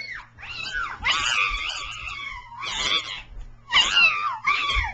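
A run of high-pitched cat-like yowls and screeches, six in all, rising and falling in pitch, with one long drawn-out cry about a second in: a frightened reaction to being told there is a snake.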